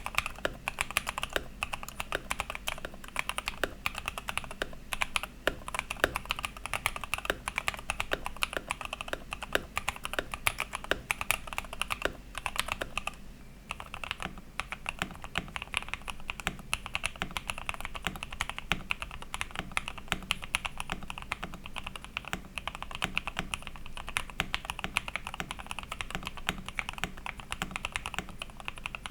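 Rexus Daxa M64 mechanical keyboard, modded with SP-Star Yanyu switches, KBDFans Corgi cherry-profile keycaps and an O-ring gasket mount, being typed on continuously: a rapid run of keystroke clacks, with a brief pause about 13 seconds in.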